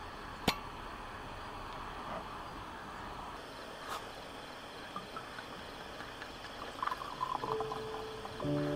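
A cork comes out of a wine bottle with a sharp pop about half a second in, and a light click follows a few seconds later. Near the end red wine glugs and splashes from the bottle into a wine glass, and music starts just before the end.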